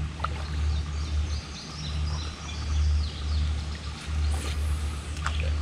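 Steady low rush of water pouring through a culvert, with birds chirping over it from about a second to four seconds in.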